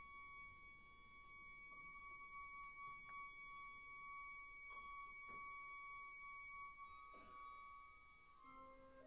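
Symphony orchestra in a very soft passage: a single high note is held steadily for most of the time, with a few faint clicks in the middle, and new notes, including a lower one, come in near the end.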